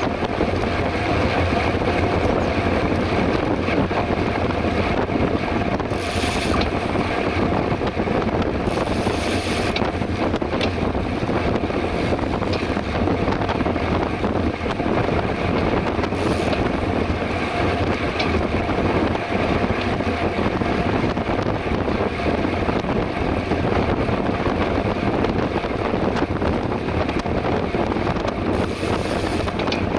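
Steady rush of wind on the microphone of a mountain bike ridden at speed on the road, with the bike's running noise underneath.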